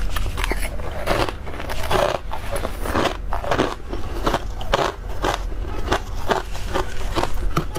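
A person biting and chewing a mouthful of soft, powdery freezer frost, with quick irregular crunches and crackles, several a second, over a steady low hum.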